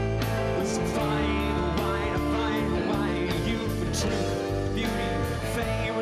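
Live band music with a drum kit and guitar, cymbals struck at a regular beat.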